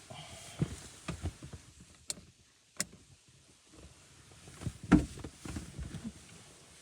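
A series of irregular knocks, clunks and sharp clicks, with a brief squeak at the start and the loudest thump about five seconds in.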